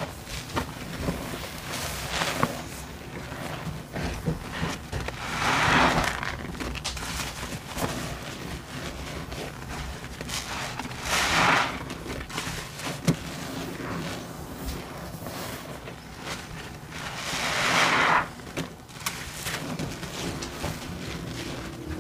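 A large soap-soaked foam sponge squeezed by hand over a sink of sudsy water: three long wet squeezes about six seconds apart, each swelling up and stopping, with a soft crackle of suds between them.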